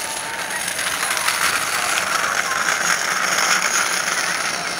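Cessna 172's piston engine and propeller at low power on landing approach, heard at a distance with a fine buzzing texture, swelling as the aeroplane comes nearest about three seconds in and easing slightly near the end.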